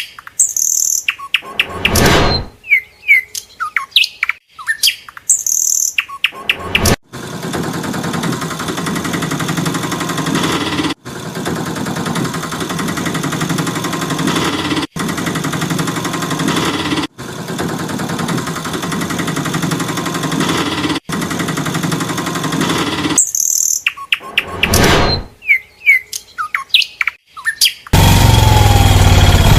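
Birds chirping in short gliding calls, with a brief whoosh about two seconds in and again near the end. Through the middle a steady dense noise takes over, broken by brief gaps every few seconds, and a loud steady sound begins just before the end.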